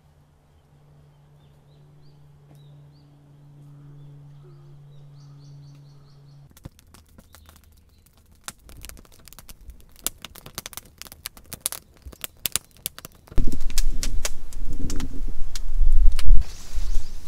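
Faint birdsong over a low steady hum, then, after a cut, a run of sharp clicks and crackles. About thirteen seconds in, loud rustling and handling noise close to the microphone takes over, the canvas tent and mosquito net being moved.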